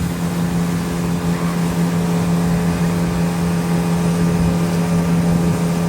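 A watercraft's engine running at a steady speed, an even hum that holds one pitch, over rushing wind and water noise.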